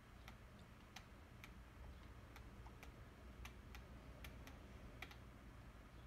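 Faint, irregular clicks of a computer mouse, about two a second.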